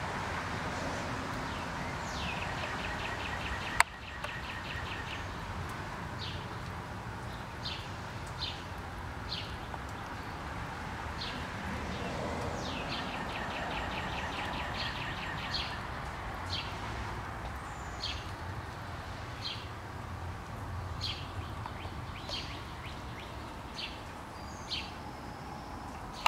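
Small songbirds chirping repeatedly, with a couple of rapid trills, over a steady background hum. A single sharp click about four seconds in.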